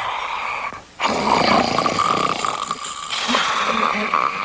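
Cartoon bear snoring loudly while asleep on a couch: a short snore that fades out just before a second in, then long snores one after another.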